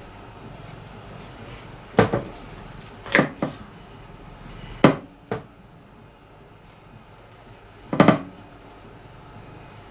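Wooden rolling pin knocking on a marble pastry board while rolling out stiff samosa dough. About six sharp, irregular knocks, the loudest about two, five and eight seconds in.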